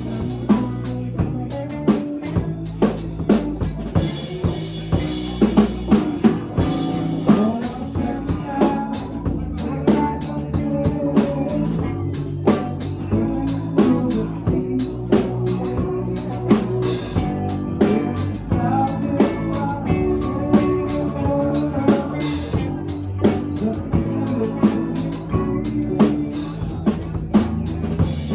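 A live band playing, with a drum kit keeping a steady beat of sharp hits over sustained bass and other pitched instruments.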